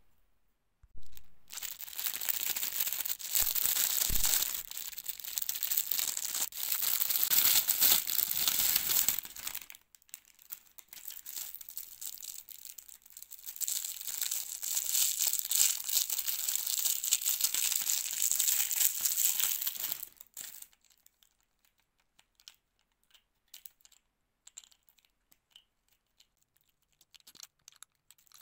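Close crinkling and rustling in two long stretches with a brief break about ten seconds in, then only scattered faint clicks from about twenty seconds on.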